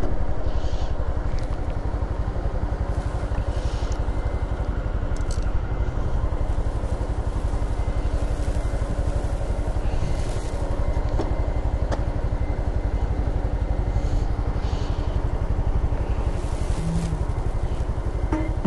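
Motorcycle engine idling steadily, an even low putter.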